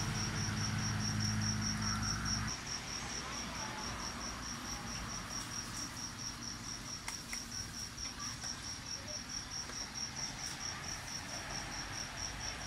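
Cricket chirping steadily in high, even pulses, about four a second. A low engine hum cuts off abruptly about two and a half seconds in.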